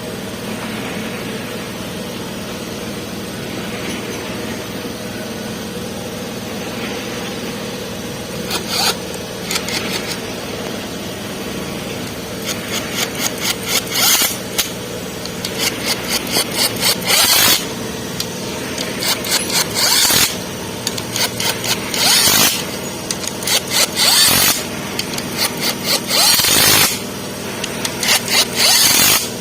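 Steady background hum, then from about a third of the way in, rapid back-and-forth hand scraping strokes in repeated short bursts about a second long, with brief pauses between.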